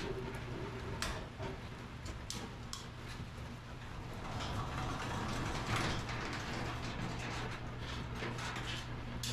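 Sectional garage door hardware being worked: scattered metal clicks and rattles, with a longer rolling, scraping stretch in the middle, over a steady low hum.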